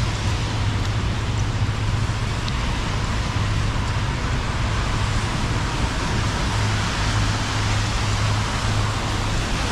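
Steady wet-street city ambience: an even hiss of rain and wet road over a constant low rumble of traffic.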